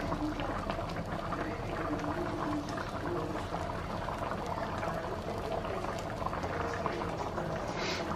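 Black beans in their broth, with rice and water, boiling in a frying pan: a steady bubbling with many small pops.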